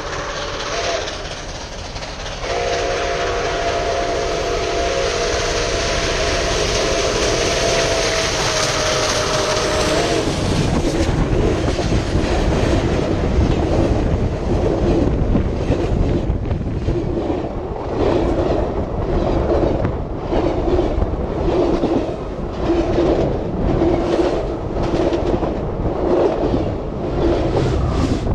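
Steam locomotive's chime whistle sounding a chord of several notes. It breaks off briefly and then blows one long blast that ends about ten seconds in. Then the train rolls directly over the rails: a heavy rumble of steel wheels on rail with a clickety-clack about once a second as the wheel sets pass.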